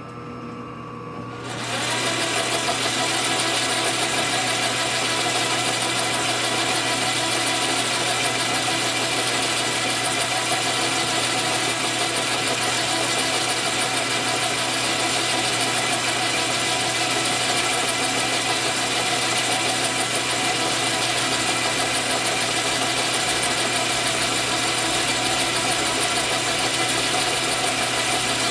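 Metal lathe switched on about two seconds in, then running steadily with its four-jaw chuck spinning the workpiece.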